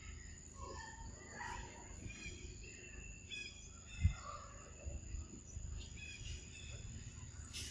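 Outdoor forest ambience: a steady high insect drone with scattered faint chirping calls over a low rumble. A single low thump about four seconds in.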